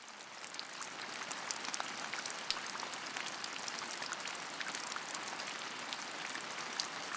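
Steady rain falling, with many separate drops ticking on a hard surface.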